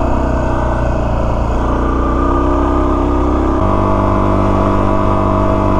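Suzuki DR-Z400S single-cylinder four-stroke dual-sport motorcycle engine running steadily under way. Its note steps to a different pitch about three and a half seconds in.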